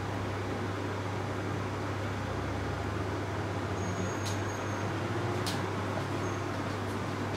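Air fryer running with a steady low hum and fan noise. There are a few faint ticks about four and five and a half seconds in.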